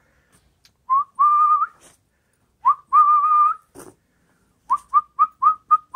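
A person whistling to call puppies to follow: two held notes, then a quick run of five short notes and a long held note at the end.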